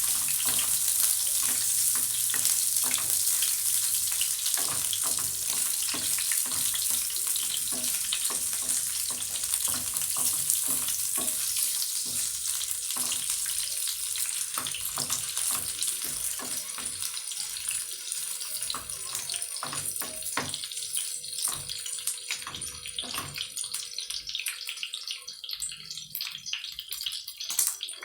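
Boiled chicken gizzards frying in hot cooking oil in a pan: a steady sizzle with many crackles and pops, the hiss easing off over the second half.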